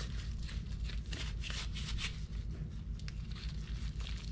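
Rustling, crunching scrapes of damp shredded cardboard mixed with turkey tail sawdust spawn, scooped and pressed by gloved hands around a plastic flower-pot mould. A steady low hum runs underneath.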